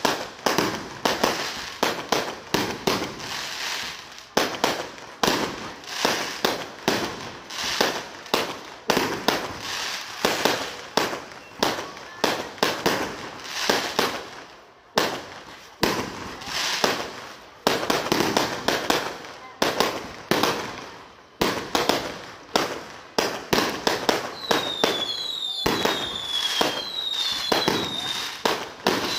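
Aerial fireworks bursting in rapid succession, several sharp bangs a second. Near the end a series of high, falling whistles joins the bangs.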